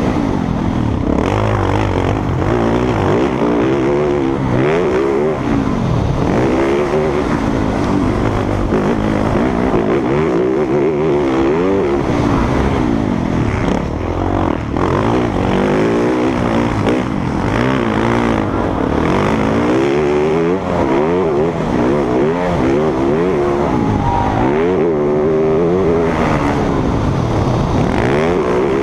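Motocross bikes racing, their engines revving up and dropping back again and again, one rise and fall every second or two.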